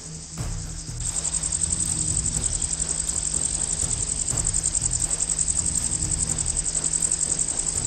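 Insects chirring in a field: a steady, rapid, high-pitched pulsing that gets louder about a second in.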